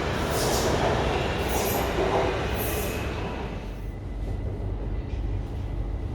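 Train running: a steady rumble with three short hissing bursts in the first three seconds. It grows quieter about four seconds in, leaving a faint steady high whine.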